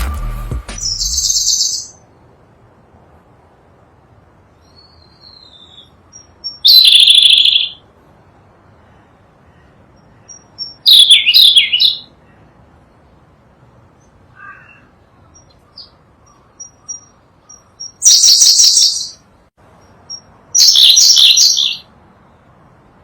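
Sunda blue robin singing: five loud, high-pitched phrases of about a second each, several seconds apart, with faint short call notes between them. Intro music fades out in the first couple of seconds.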